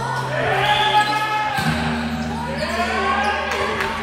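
Basketball play on a gym court: the ball bouncing and shoes squeaking on the floor in a few gliding squeals, over a steady low hum.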